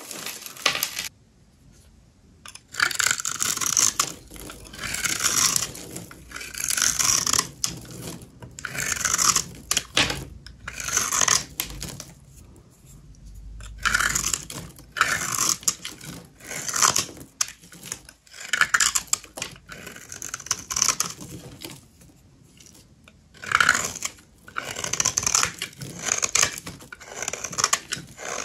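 A knife cutting into a bar of dry soap in repeated scraping strokes, one about every second and a half, with a few short pauses.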